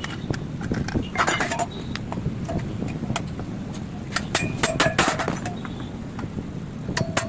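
Metal clinking and tapping in several quick, irregular clusters, over a steady low rumble.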